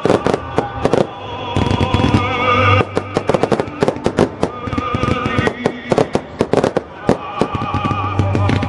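Fireworks display going off in rapid volleys, several sharp bangs and cracks a second, over music with wavering sustained notes.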